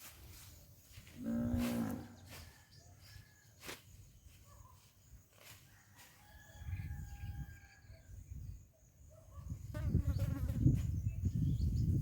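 A cow mooing once, briefly, about a second in. A low rumbling noise follows later and is loudest near the end.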